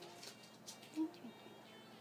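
Faint background music with a short soft sound about a second in.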